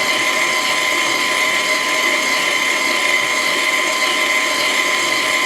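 Wolf stand mixer's motor running steadily at speed 5 with no attachment fitted: an even, loud motor whine with a constant tone that does not change.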